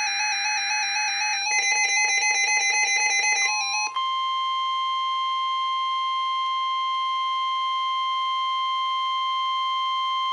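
Electronic alert tones from a NOAA Weather Radio broadcast. First comes a rapidly alternating, stepping tone pattern with a buzzing data-like band under it, then a quick run of even pulses. About four seconds in, the steady single-pitch 1050 Hz weather-radio warning alarm tone starts and holds, signalling the warning message that follows.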